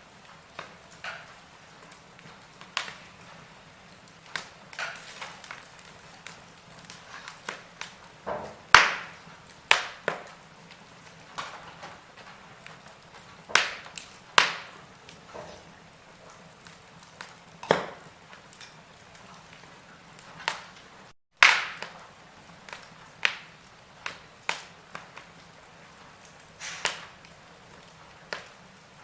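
Wood fire in a fireplace crackling, with sharp pops at irregular intervals over a faint steady hiss; the loudest pops come about 9 and 21 seconds in. There is a split-second cut to silence just before the second of these.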